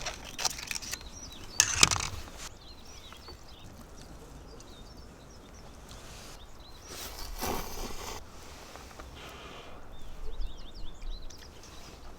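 Small birds chirping in short, high, repeated calls. A few sharp knocks and a rustle come near the start, and another brief rustle comes about halfway through.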